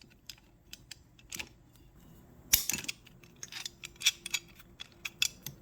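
Facom 501A locking pliers being worked by hand: a run of small metal clicks and rattles, with one sharper snap about two and a half seconds in.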